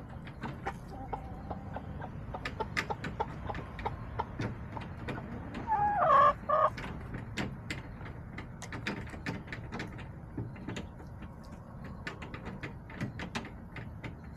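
Backyard hens: one loud call, in two quick parts, about six seconds in, over a steady scatter of sharp taps.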